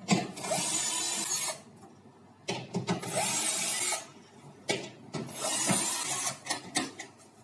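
A hand or power tool unscrewing a washing machine's transport bolts from its back panel, running in three bursts of about a second each, with small knocks in between.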